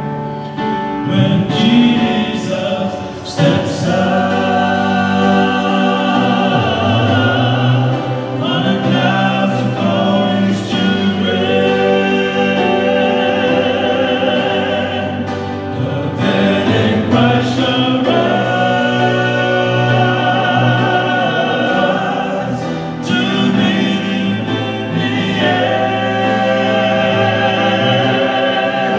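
Male vocal quartet singing a gospel song in close harmony into microphones, holding long notes with vibrato, with short breaks between phrases.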